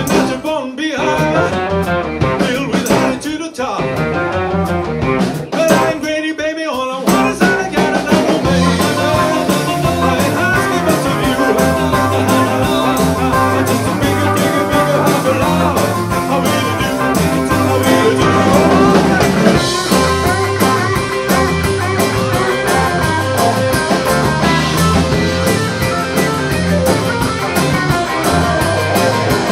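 Live rock and roll band playing with drums, bass, electric guitar, keyboard and pedal steel. The band stops short a few times in the first seven seconds, then plays on without a break.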